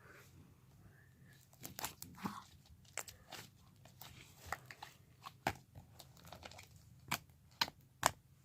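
Butter slime being poked and squished by hand, giving faint scattered clicks and little crackling pops, a few sharper clicks near the end.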